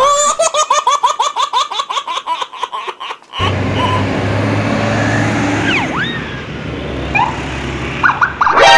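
A quick run of short rising-and-falling chirps, about four a second, for some three seconds. Then a motor vehicle running with a steady low hum and road noise, with a few faint sliding whistles over it.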